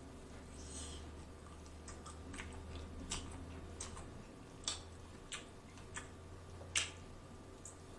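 Close-miked mouth sounds of a person eating a chicken wing off the bone: sparse wet smacks and clicks of chewing and gnawing, about one a second.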